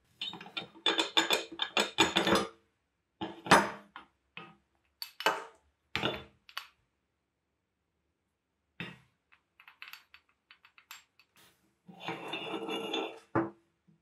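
Irregular clinks and knocks of cast-iron meat grinder parts being handled and taken apart by hand, the crank arm coming off its shaft. The sounds come in clusters with quiet gaps between.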